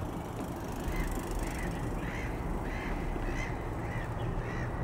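Ruddy shelduck calling: a run of about eight short honks, roughly two a second, over a steady low background rumble.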